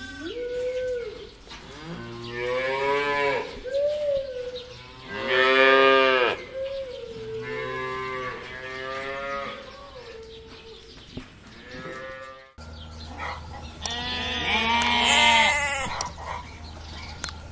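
Cattle mooing: a series of drawn-out moos, several seconds apart, the loudest about six seconds in and another loud one near the end.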